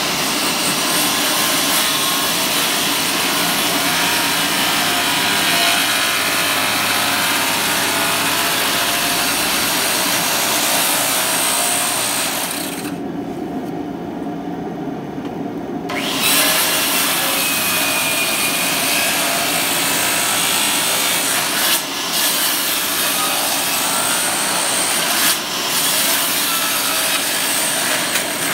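Worm-drive circular saw cutting repeated shallow kerfs across a timber beam to clear the waste of a dovetail joint. It saws steadily. Roughly halfway through, the high cutting noise drops away for about three seconds and then resumes, with two brief dips near the end.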